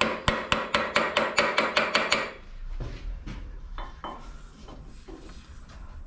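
Small ball-pein hammer tapping quickly and evenly on the steel axle end of a miniature locomotive wheelset, about four or five ringing blows a second, stopping about two seconds in. After that come quieter scattered metal clinks and knocks as the wheelset is handled in a hydraulic press.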